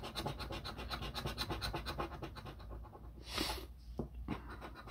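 A coin scratching the coating off a scratch-off lottery ticket in quick, even back-and-forth strokes, about nine a second, which stop about two and a half seconds in. A short, louder scrape follows a little after three seconds, then a couple of light taps.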